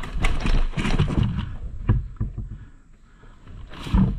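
Running footsteps crunching through dry leaf litter, rapid and heavy for about two seconds, then slowing and softer. A loud thump comes near the end.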